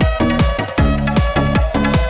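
Electronic dance music with a heavy, steady kick-drum beat and synth tones.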